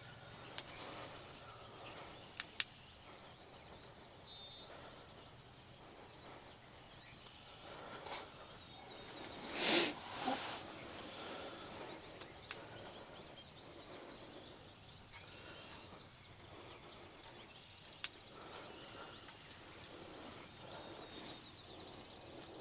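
Faint ambience inside a hunting ground blind in the rain: a steady soft hiss with a few small bird chirps and scattered sharp clicks, and one brief louder noise about ten seconds in.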